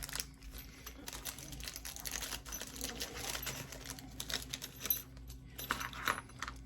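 Small hand tools and their packaging being handled: irregular light clicks, taps and rustling as the tools are taken out, over a faint steady hum.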